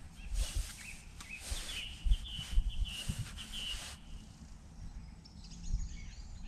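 A bird gives a quick run of short chirps in the middle, over bouts of rustling and rubbing close to the microphone, with low bumps.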